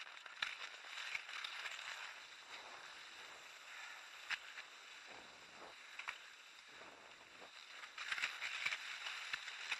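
Cross-country skis hissing as they glide along a groomed classic track, with the odd click of a ski pole planted in hard snow.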